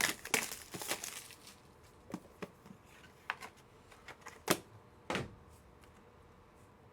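Trading cards in plastic cases and slabs being handled: a flurry of rustling and clicks, then scattered clicks, with two louder knocks of plastic about four and a half and five seconds in.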